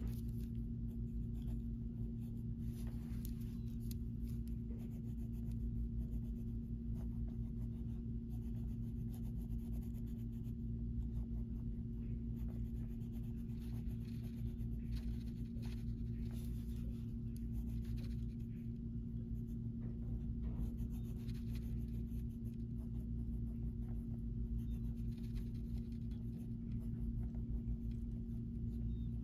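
Purple wax crayon scratching back and forth across coloring-book paper in repeated strokes, over a steady low hum.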